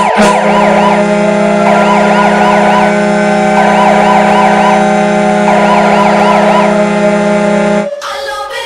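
Ice hockey goal horn blaring with a steady low chord, while a siren rises and warbles in four repeated bursts over it. It cuts off suddenly after about eight seconds.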